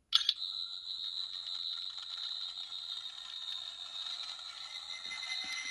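14th Doctor sonic screwdriver toy by Character Options playing its charge-up sound effect, set off by three presses of its button: a steady high electronic whine.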